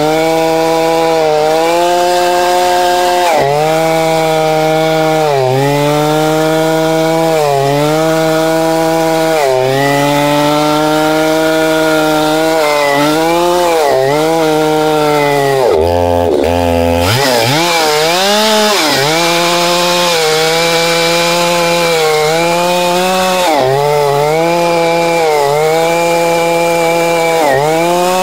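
Chainsaw with a ripping chain running at high revs under load, ripping lengthwise through a log in a chainsaw mill. The engine pitch sags and recovers about every two seconds as the chain bites into the cut, with a deeper dip a little past the middle.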